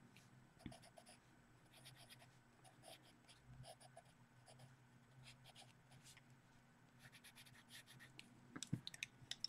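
Faint scratching of a Derwent pastel pencil on colouring-book paper in short, repeated strokes as colour is laid on, a little louder near the end.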